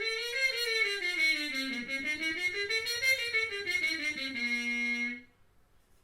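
Trumpet playing a slurred phrase that climbs and falls twice over about an octave, then holds a low note that stops about five seconds in.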